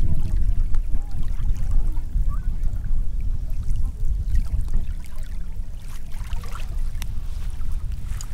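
Beach ambience: water washing on the shore over a steady low rumble, with scattered small clicks.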